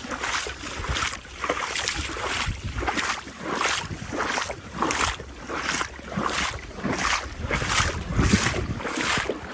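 Footsteps wading through shallow floodwater in boots at an even walking pace, each step a splash, with wind buffeting the microphone.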